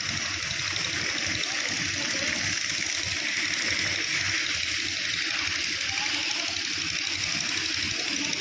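Pressure hose from a pump spraying a strong water jet onto flood silt on stone paving, washing the mud away: a steady rushing spray that does not let up.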